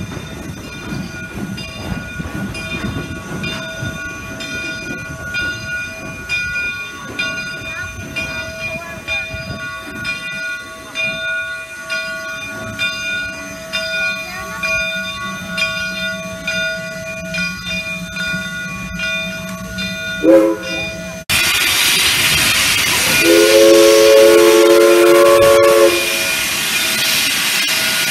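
Steam-hauled train running with a steady rumble. About 21 seconds in, a loud rush of steam hiss starts suddenly, and the steam locomotive's whistle blows one long blast of about two and a half seconds, after a brief toot just before the hiss.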